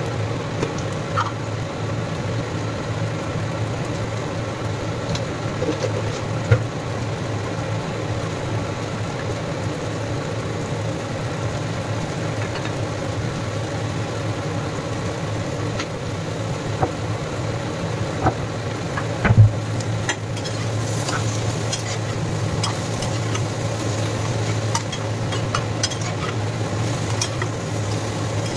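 Sliced ridge gourd frying in a nonstick pan, with a quiet sizzle and a metal spatula scraping and tapping against the pan as it is stirred; the clicks come thicker in the last third, with a sharp knock about six seconds in and another near the middle. A steady low hum runs underneath.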